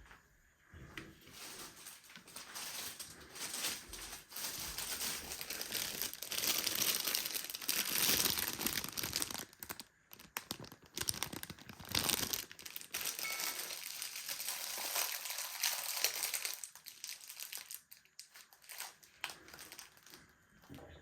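Packaging crinkling and rustling as it is handled, busiest through the middle and dying down near the end.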